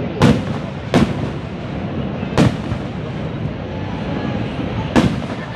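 Aerial fireworks bursting: four sharp booms at irregular spacing, over a steady low rumble.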